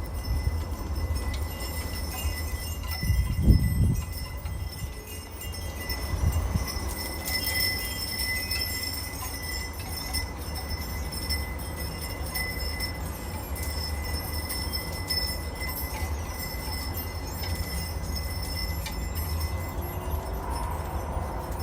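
Wind chimes ringing softly in a breeze, their tones hanging on steadily, over a low rumble that swells briefly about three seconds in.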